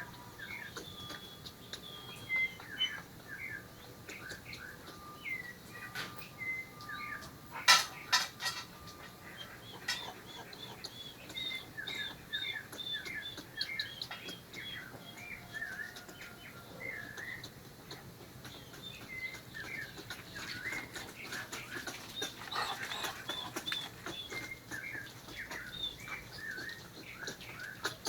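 Squirrels chattering: overlapping runs of short, high chirps repeated rapidly throughout, with one sharp knock about eight seconds in.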